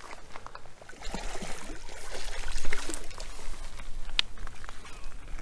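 Water trickling and dripping in small splashes, with scattered light clicks and one sharp click about four seconds in.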